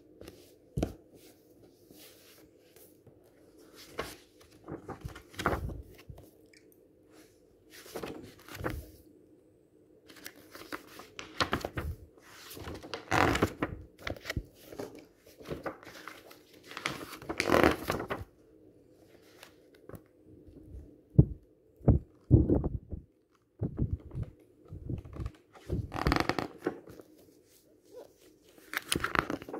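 Hands handling a book and paper on a tabletop: irregular rustling and sliding of paper with scattered taps and thuds on the table, including a quick cluster of sharp knocks about two-thirds of the way through.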